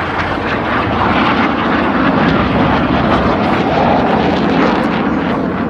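BAE Hawk T1 jets flying a display pass, a loud, steady roar of their turbofan engines.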